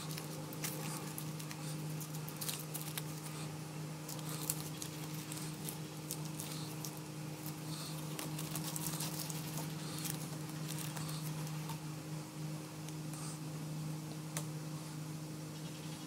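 Masking tape being peeled and unwound by hand from a plaster cast: irregular crackling and rustling with many small sharp clicks, over a steady low hum.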